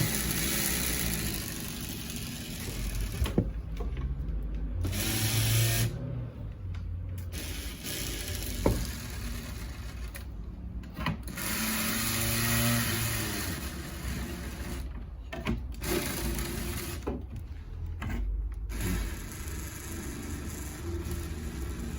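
A small electric motor running in short spells, with a few sharp clicks in between.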